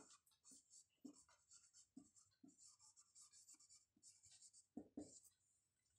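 Faint scratching and tapping of someone writing by hand, many short strokes in quick succession.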